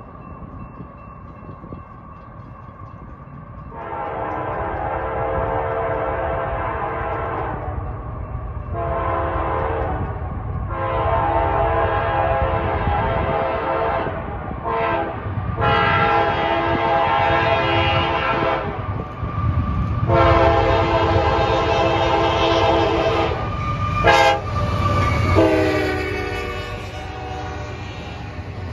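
Diesel freight locomotive's horn sounding a series of long and short blasts as the train approaches, its pitch dropping as the locomotive passes near the end. Under it is the growing rumble of the engine and the wheels of a double-stack container train.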